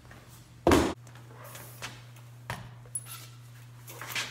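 Wood knocking as framing supports are handled: one loud thump under a second in, then a few lighter knocks and clatters, over a steady low hum.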